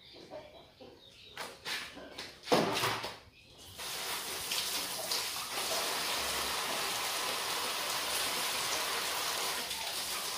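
A few knocks from hands working in a small stainless-steel pot, the loudest about two and a half seconds in. From about four seconds in, a steady rush of running water.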